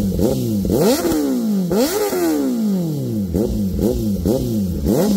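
Kawasaki ZX-10R inline-four sport bike revved through an Austin Racing titanium slip-on exhaust: a string of about seven or eight quick throttle blips, each snapping up in pitch and then falling back toward idle.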